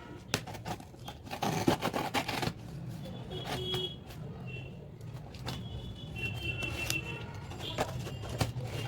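Cardboard shipping box being opened by hand: irregular scraping, tearing and rustling, busiest in the first two and a half seconds, then scattered clicks of handling.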